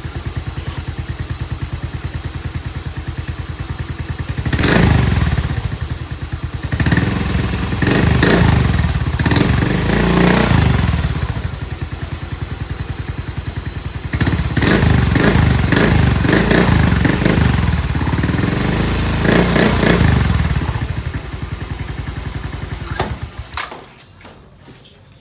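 Yamaha Mio i 125 scooter's single-cylinder four-stroke engine, all stock, idling through an aftermarket Vmax screen-type exhaust with its silencer fitted and revved in three blips: a short one about four seconds in, then longer ones around seven to eleven and fourteen to twenty seconds. The engine sound stops near the end.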